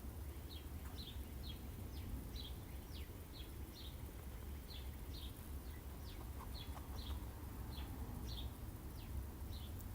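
A small bird chirping over and over, about two short high chirps a second, over a steady low background rumble.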